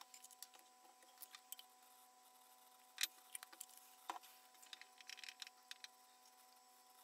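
Light clicks and taps of small lacquer tubes and a porcelain dish being picked up and set down on a wooden table, the sharpest click about three seconds in and a duller knock just after. Near the end comes a run of faint ticks as a small stick mixes lacquer in the dish, over a faint steady electrical hum.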